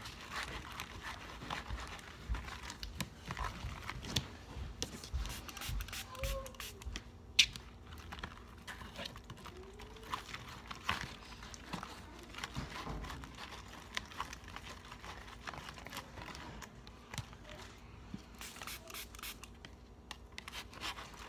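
Hands kneading and pulling white glue slime with sequins on a paper plate: irregular squishing, clicking and crackling, with the plate rustling and scraping under it and one sharper tick about seven seconds in.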